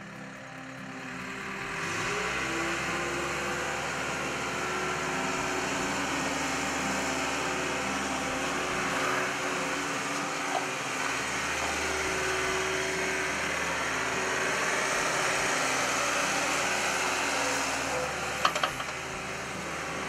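Case 430 skid steer's diesel engine revving up about two seconds in, then running steadily as the machine drives. A few sharp clanks near the end.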